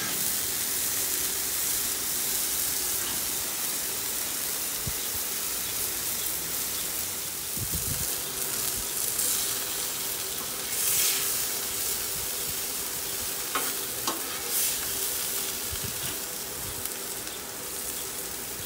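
Thin-sliced sirloin steak meat sizzling steadily on a hot Blackstone flat-top griddle. A metal spatula scrapes and chops at the meat on the steel plate a few times, about halfway through and again later.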